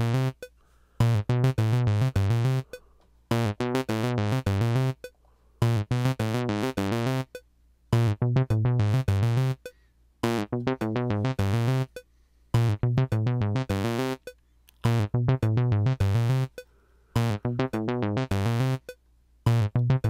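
Monophonic synthesizer sequence played by a HALion synth: a one-bar pattern of rapid 16th notes that loops about every two and a quarter seconds, with short rests between repeats. Its tone brightens and darkens as the filter cutoff is swept by drawn-in CC74 controller data.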